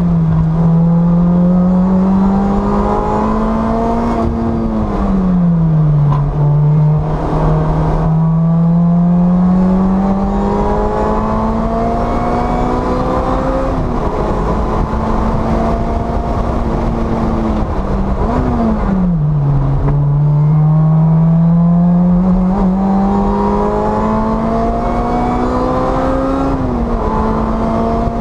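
Supercharged 1.8-litre four-cylinder engine of a 2010 Lotus Exige S260 at high revs under hard acceleration, heard from inside the car. Its pitch climbs steadily as it pulls through the gears and drops sharply a few times where it shifts up or comes off the throttle for a corner.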